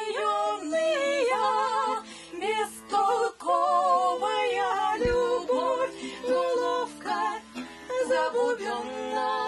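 A woman singing a song with a wavering vibrato, accompanying herself on a steel-string acoustic guitar.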